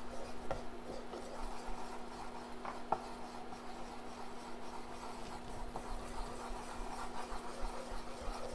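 Wooden spoon stirring and scraping across the bottom of a saucepan of melted butter and flour as a roux is worked together, with a few light knocks of the spoon against the pan.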